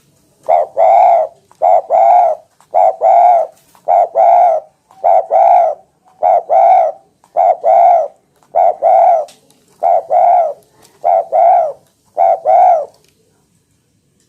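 Spotted dove (tekukur) cooing loudly, about eleven low, double-pulsed coos in a steady rhythm of roughly one a second, stopping shortly before the end.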